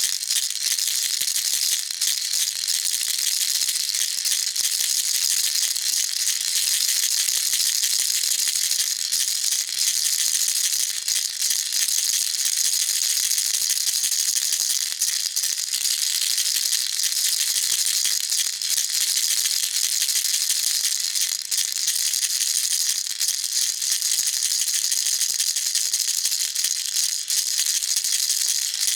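Baby rattle shaken continuously, a dense, steady high-pitched rattling of small beads with no pauses.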